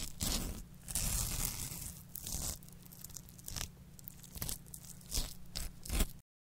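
Knife scraping and cutting through a whole raw fish on a wooden cutting board as it is cleaned: irregular wet scrapes and tearing sounds, stopping abruptly just before the end.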